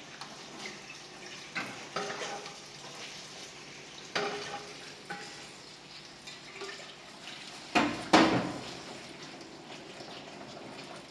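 Pots, pans and utensils clattering and knocking while food is prepared, with two loud knocks about eight seconds in, over a low steady hiss.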